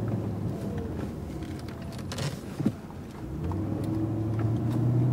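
Mercedes-Benz car's engine heard from inside the cabin: it quietens as the car slows at a stop sign, a single short click sounds about two and a half seconds in, and then the engine note climbs again as the car pulls away and accelerates into a turn.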